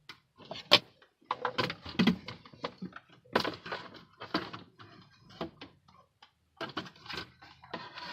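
Irregular clicks, knocks and rustling of hard plastic parts being handled as a car's instrument cluster is worked in and out of the dashboard, with a sharp loud click about a second in.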